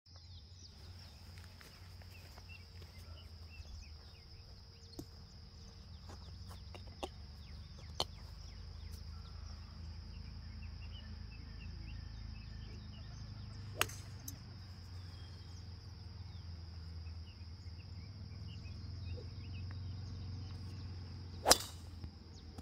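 A golf driver striking a ball off the tee: one sharp crack with a short ring near the end, the loudest sound. Fainter club strikes of another golfer come earlier, over a steady high insect drone and wind on the microphone.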